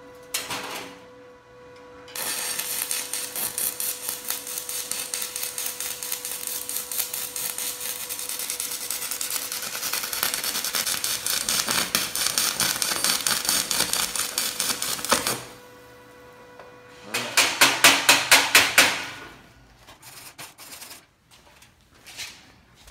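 Pulsed stick (SMAW) arc welding with a 7018 electrode on an HTP Inverarc 200 TLP inverter welder on 1/8-inch steel: a steady arc crackle with a fast, even pulse for about thirteen seconds, which then cuts off. A couple of seconds later comes a short burst of rapid strikes on the steel.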